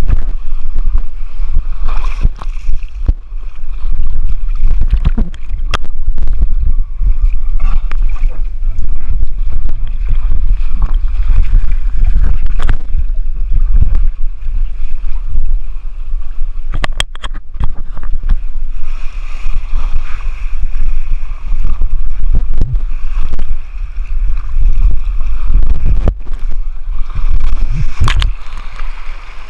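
Rushing water of a water slide with heavy wind and rumble on the microphone, broken by frequent sharp knocks and splashes.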